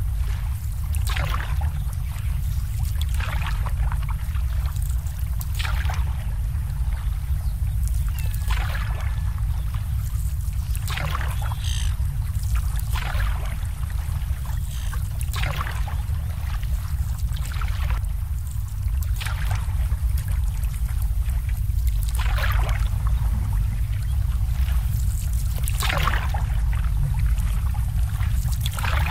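Small waves lapping and slapping against moored boat hulls and the pontoon in a marina, a short splash about every two seconds, over a steady low rumble.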